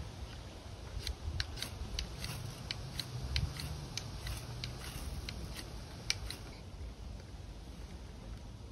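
Milled spine edge of a Terävä Skrama 240 knife scraped down a ferro rod again and again, about three quick rasping strikes a second, striking sparks into tinder. The strikes stop about six and a half seconds in.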